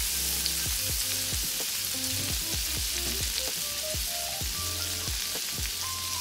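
Butter sizzling and foaming in a hot 12-inch cast iron skillet over pork chop drippings, with the heat turned down to medium: a steady hiss.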